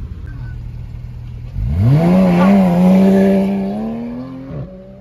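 Porsche 911 GT3's flat-six engine revving hard as it pulls away from a standstill: the pitch sweeps up quickly about one and a half seconds in and holds high for a couple of seconds, then fades as the car draws away.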